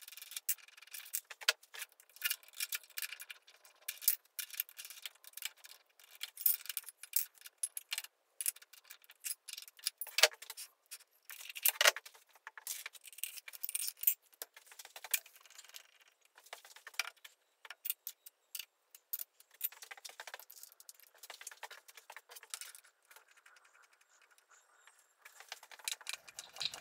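Light, irregular metallic clicks and clinks of steel tools and parts being handled and set down on a milling machine's cast-iron table.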